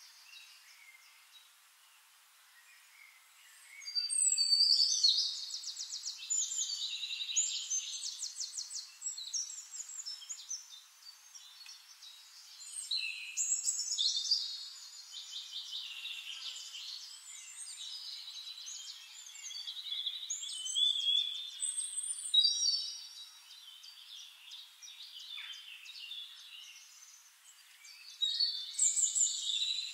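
A songbird singing in long phrases of rapid trills and chirps, in four loud bursts with quieter chirping between them.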